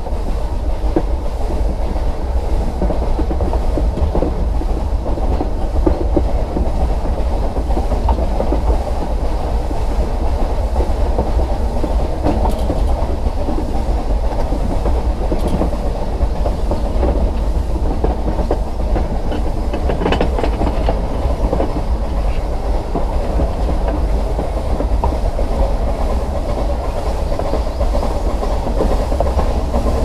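Nilgiri Mountain Railway train running along its metre-gauge track: a steady, muffled rumble of wheels on rails, with one brief knock about two-thirds of the way through.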